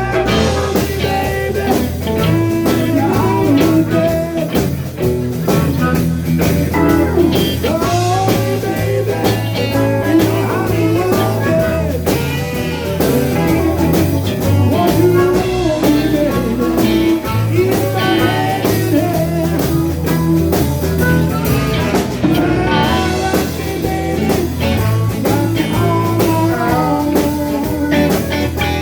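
Live blues band playing an instrumental passage: a guitar lead with bending notes over a steady bass line and drums.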